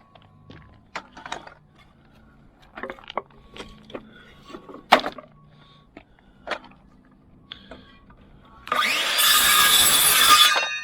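A few light knocks and clatters of wooden boards being handled, then near the end about two seconds of loud sawing through pallet wood, which then stops.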